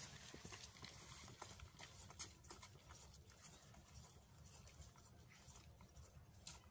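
Footsteps of several people walking on concrete paving stones, loudest at first and fading as they walk away.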